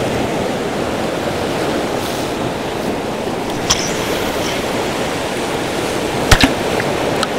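Ocean surf washing against a rocky shore: a steady rushing noise, with a few sharp clicks or knocks, the loudest about six seconds in.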